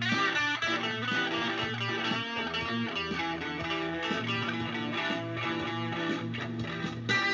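Electric guitar played through an amplifier, a steady run of notes and chords.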